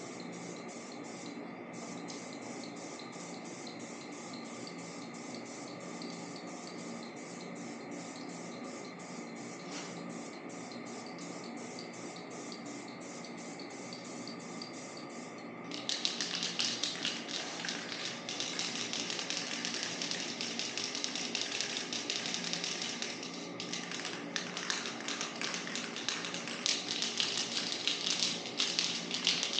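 An aerosol spray-paint can being shaken, its mixing ball rattling in a steady run of clicks, several a second. About sixteen seconds in, the rattling stops and the can's spray nozzle hisses in spurts as paint goes on in thin coats.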